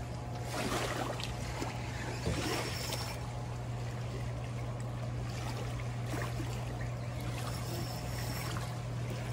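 A steady low hum under an even wash of running water.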